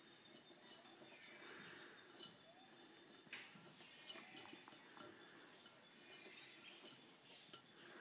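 Faint, scattered clicking and scraping of a king parrot moving about inside a seed jar it is stuck in, hard little knocks against the jar.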